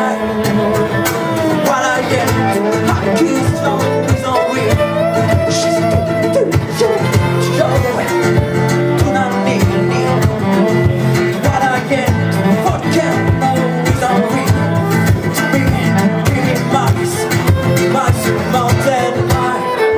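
Live acoustic guitar strummed in a steady rhythm, with a voice singing over it at times.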